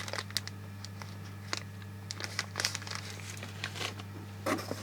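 Small plastic bags of electronic components being handled and sorted, crinkling and rustling in irregular bursts with small clicks, loudest near the end, over a steady low hum.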